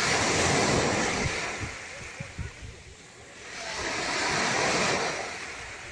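Small sea waves breaking on the shore: one washes in right at the start and fades within about a second and a half, and a second one swells in about four seconds in.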